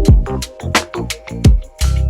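Background music: an electronic, hip-hop-style track with a steady drum beat and a deep kick drum under sustained synth notes.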